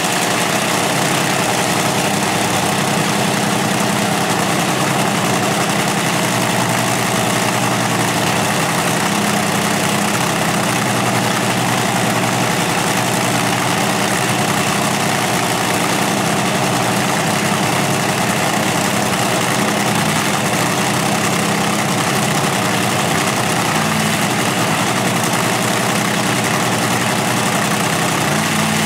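Supercharged drag-racing engine, topped by a roots blower and injector hat, idling loudly and steadily during a pit warm-up, with no revs.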